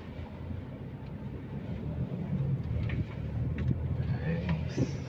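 Toyota Hilux pickup's engine running low and steady at a slow crawl, heard from inside the cabin, with a couple of faint knocks past the middle.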